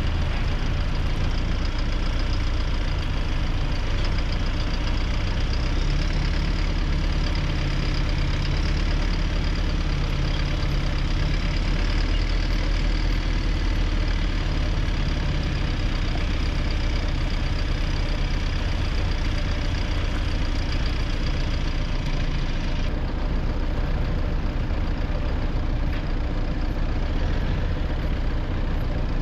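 Vehicle engine running steadily, a continuous low drone with no change in speed.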